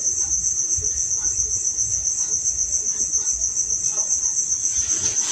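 A cricket trilling steadily, one high, rapidly pulsing note.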